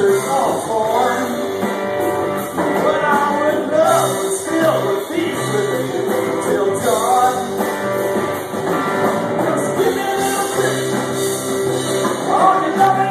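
A live rock band playing electric guitars and drums, with a sung vocal.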